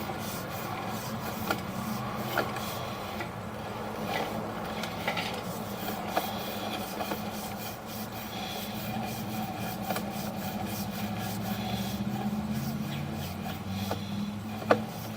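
Sewer inspection camera's push cable being fed up a drain pipe: steady rubbing and scraping with scattered clicks, the sharpest one near the end, over a low steady hum.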